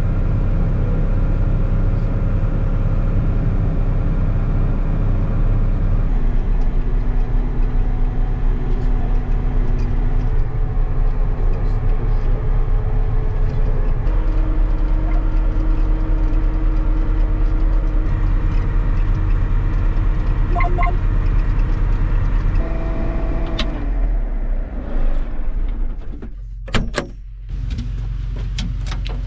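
Tractor engine running steadily under load, a low drone whose tone shifts abruptly several times. Near the end the drone drops away, with a few sharp clicks.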